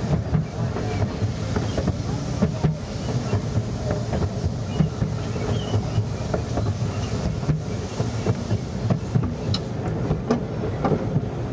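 Narrow-gauge railway train running along the track, heard from aboard: a steady rumble with frequent irregular clicks and knocks from the wheels on the rails.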